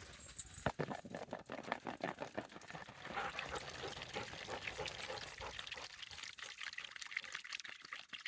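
Water being poured into a dog's water bowl, with light splashing and small clicks.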